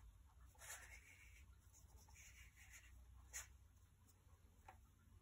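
Near silence with faint scratchy rustling twice, then a single sharp click about three seconds in and a softer tick near the end: light handling noise.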